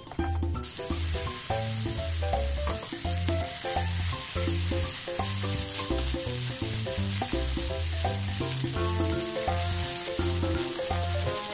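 Chicken ham and rice sizzling in butter in a non-stick frying pan while being stirred with a wooden spoon; the sizzle starts about half a second in. Background music with a regular bass beat plays throughout.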